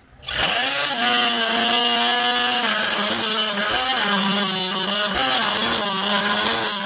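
Cordless oscillating multi-tool cutting into rusted stamped-steel sheet metal on a Jeep Cherokee's rear spring-hanger pocket. It runs as a loud, steady buzz with a hissing, rasping edge, its pitch wavering slightly as it cuts. It starts about a third of a second in.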